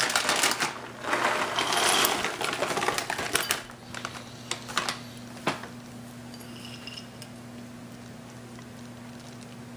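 Clear plastic bag crinkling and rustling as it is handled and chopped pecans are shaken out of it, for about the first three and a half seconds. Then a few light clicks and one sharper tap about five and a half seconds in, and after that only a low steady hum.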